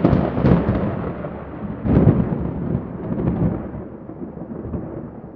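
Thunder rumbling: one clap right at the start and another about two seconds in, each rolling off and fading away.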